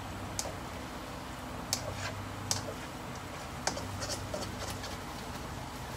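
A slotted spatula tapping and scraping against a wok as food is stir-fried, in a handful of irregular clicks over a steady low hum.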